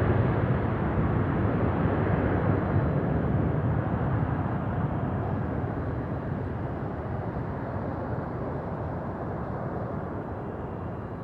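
Twin jet engines of a Boeing 767-300 airliner at take-off power, a steady rumbling noise with no clear tone that fades evenly as the plane climbs away.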